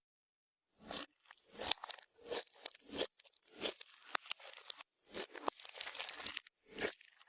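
Clear slime being squished and stretched by hand as makeup and glitter are mixed in: a run of sticky crackles and pops, starting after about a second of silence.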